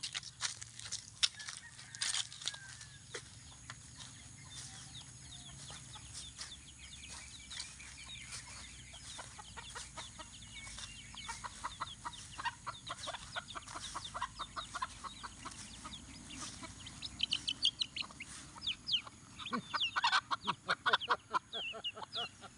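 Chickens clucking in a quick run of short calls that get faster and louder in the last few seconds.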